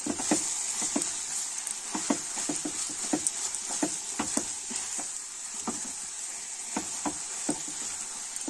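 Grated cauliflower and mashed potato sizzling steadily as they fry in oil in a kadhai, while a silicone spatula stirs and scrapes through the mixture against the pan in quick, irregular strokes.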